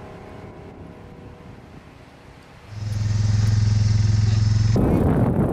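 Faint fading background music, then, about halfway in, a quad bike's engine starts up loud and runs at a steady pitch while carrying riders. A brief rush of noise follows near the end.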